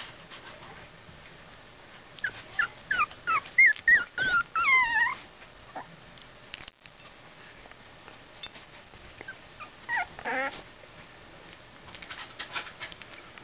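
Two-week-old basenji puppies whimpering: a run of short, high-pitched squeaks and whines that slide up and down in pitch about two seconds in, lasting some three seconds, then one more brief cry around ten seconds in. A few faint clicks near the end.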